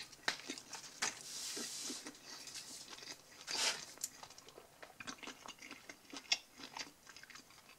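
A person chewing a mouthful of soft, fluffy pan-pizza crust: irregular small clicks and wet smacks, with one louder noisy smack about three and a half seconds in.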